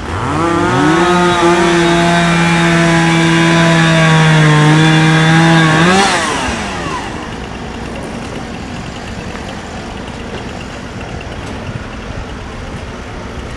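Small petrol engine revving up quickly, held at a steady high speed for about five seconds, then blipped and winding down about six seconds in.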